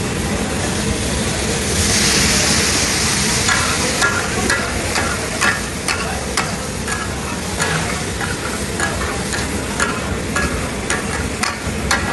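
Taka tak offal frying on a large flat iron griddle, sizzling steadily and swelling loudest about two seconds in. From about three seconds in, the metal chopping spatulas clack rapidly and unevenly against the griddle as the mixture is chopped and turned: the clatter the dish is named for.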